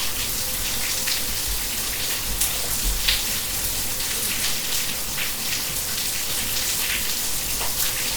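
Steady rain falling, a dense hiss with many individual drops striking close by.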